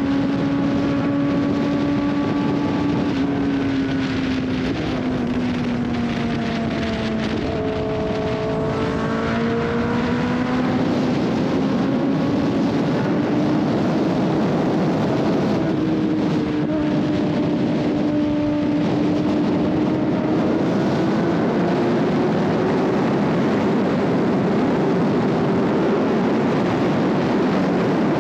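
Motorcycle engine running under way with wind rushing past. Its pitch drops for a few seconds early on, then climbs slowly and steadily as the bike gathers speed.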